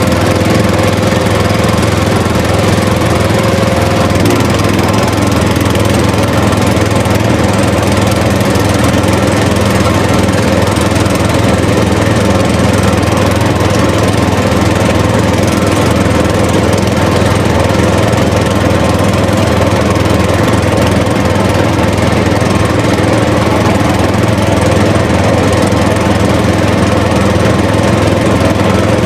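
A small motor running steadily with a constant buzzing hum that holds the same pitch throughout.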